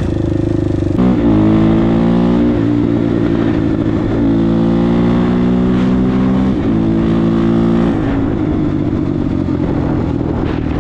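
Kawasaki KFX400 quad's single-cylinder four-stroke engine under hard acceleration. It climbs in pitch and drops back with each upshift, about four times, then runs steadier at speed near the end.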